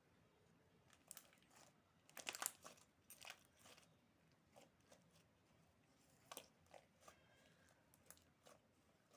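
Slime being squeezed and worked by hand, giving crisp crackling and popping clicks: a dense run of them about two seconds in, then scattered single pops.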